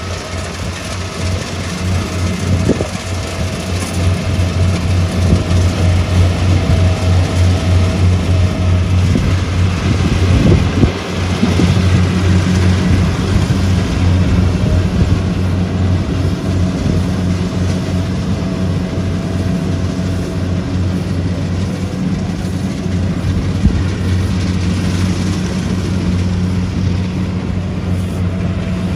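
Rice combine harvester's diesel engine running steadily under load, with the clatter and rush of its cutting and threshing machinery.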